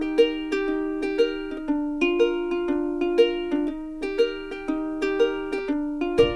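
Background music: a light plucked-string tune with a steady beat, about two notes a second. A low bass comes in near the end.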